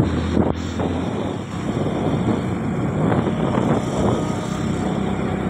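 A moving vehicle's engine, tyres and wind heard from on board as a steady, even running noise, with a low hum strongest in the first second.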